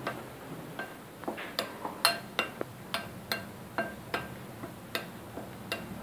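A metal spoon clinking against a glass bowl while stirring dry gram flour, a steady run of light ringing taps, about two or three a second.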